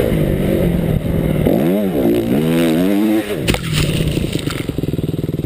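Motocross bike engine running hard, its revs dipping and then climbing before cutting back abruptly about three seconds in. A sharp clattering hit follows, with dirt spraying, and the engine drops to a slow, even putter near the end.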